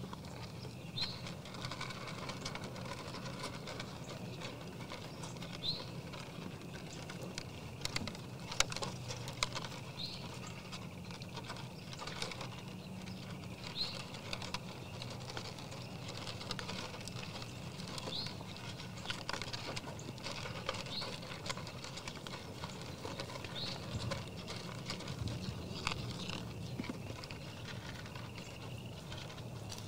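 Whitetail deer eating feed from a pan feeder close to the microphone: irregular crunching chews and small clicks and taps of muzzles against the pan.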